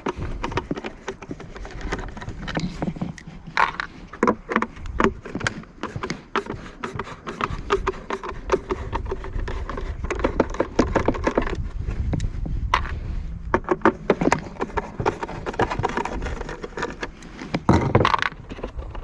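Irregular clicking, knocking and scraping of hand tools, screws and the plastic housing of a Homelite leaf blower being handled while its Torx screws are taken out.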